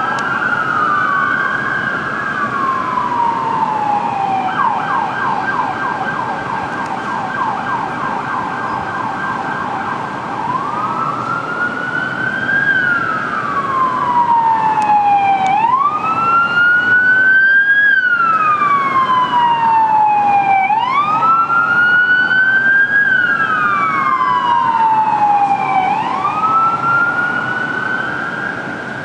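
Sirens of two fire engines overlapping. They sound a wail, each cycle a quick rise followed by a slow fall. Early on they switch for several seconds to a rapid yelp, then go back to the wail. The sirens grow louder toward the middle and fade near the end as the trucks move off.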